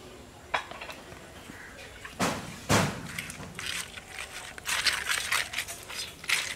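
A single click, two knocks a little over two seconds in, then from near five seconds a quick run of clicking and scraping: raw crab pieces worked together with spice pastes and mustard oil in a metal cooking pot.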